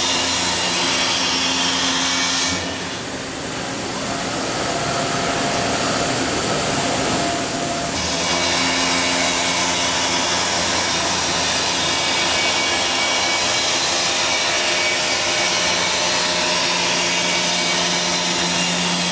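Milltronics CNC mill face-milling cast iron: a steady mix of cutting noise and spindle hum as the face mill's inserts chip through the iron. About three seconds in, the sound softens and changes for several seconds, then returns to its first pattern.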